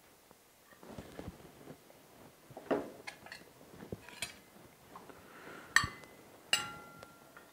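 Metal cutlery clinking and scraping on china plates and a serving platter as people eat. There are soft taps and scrapes throughout, then two sharp clinks with a brief ring about six seconds in.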